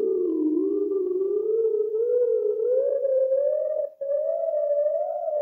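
Eerie outro music: a wavering, gliding theremin-like electronic tone that slowly rises in pitch, with a very short break about four seconds in.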